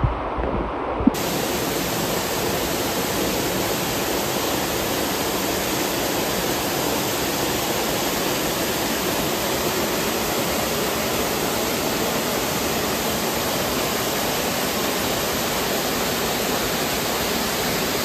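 Waterfall water cascading over rock into a pool: a steady rushing hiss. About a second in there is a click, and the rush turns brighter and fuller.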